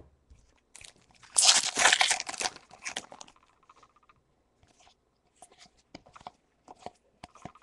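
A foil Pokémon booster pack torn open, with a loud crinkling rip lasting about two seconds starting about a second in. Then the cards are slid and flicked through by hand, with faint ticks.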